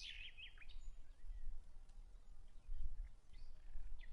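Small birds chirping in quick, short calls, bunched in the first half second with a few fainter calls later, over a steady low rumble.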